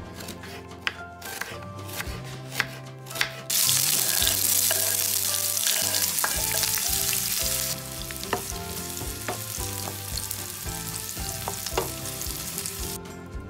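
Kitchen knife chopping an onion on a wooden cutting board in several sharp strikes. About three and a half seconds in, the sliced onions go into hot oil in a frying pan with a sudden loud sizzle. The sizzle eases after about eight seconds as a wooden spatula stirs them, with light taps.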